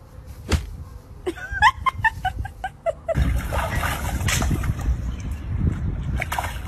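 A run of about eight short, high-pitched animal cries, each rising in pitch, then a steady rush of water noise from a pool.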